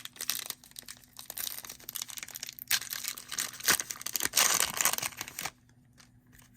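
Crinkling and tearing of a foil trading-card pack wrapper being handled and opened, loudest in the middle and dying away near the end.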